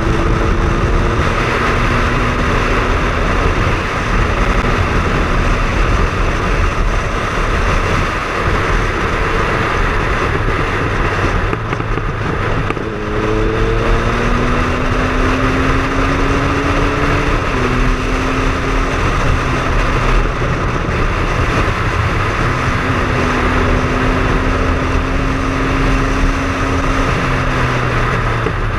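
Triumph Speed Triple's three-cylinder engine running under way over a steady rush of wind and road noise. Its note climbs slowly and drops back suddenly twice, about two-thirds of the way through and near the end.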